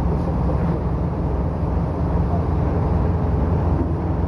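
Marine diesel machinery aboard a coastal cargo ship running steadily: a constant low rumble with a deep hum underneath.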